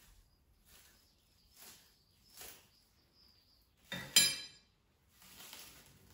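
Scissors snipping through clear plastic film several times, then a sharp metallic clink about four seconds in as the metal scissors are set down, followed by a crinkling rustle of the plastic film.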